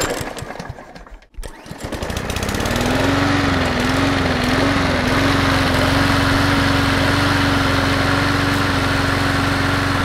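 Westinghouse WGen9500DF generator's single-cylinder engine cranking briefly on its electric starter, then catching and revving up. Its pitch wavers for a couple of seconds as it settles, then it runs steadily.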